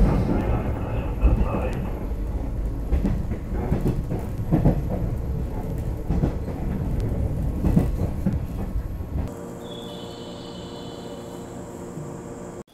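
Running noise inside a moving KuHa 455 express-type electric railcar: a loud low rumble of wheels on rail with a knock every second or two. About nine seconds in it cuts to a much quieter steady hum with a faint high whine.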